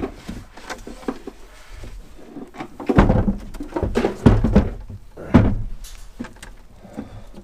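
Knocks and thuds of boat batteries being worked loose and lifted out of their compartment, the heaviest about three, four and five and a half seconds in.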